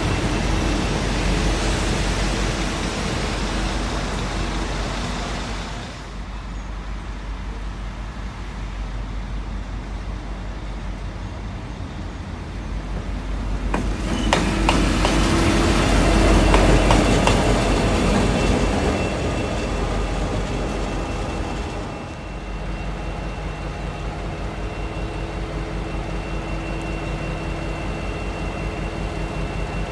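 V/Line N-class diesel-electric locomotive N458 and its passenger carriages rolling past at close range, loud for the first few seconds. After that the locomotive's diesel engine runs steadily, swelling louder with a few sharp clicks midway. From about two-thirds of the way in it settles to a steady low rumble with a fixed high whine.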